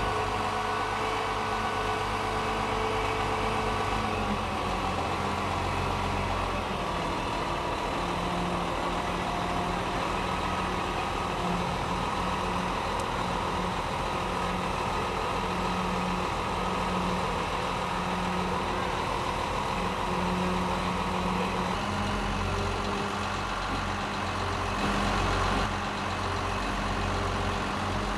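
Diesel engines of mobile cranes running steadily as they lift a railway passenger car, their pitch shifting now and then. A brief louder rush of noise comes near the end.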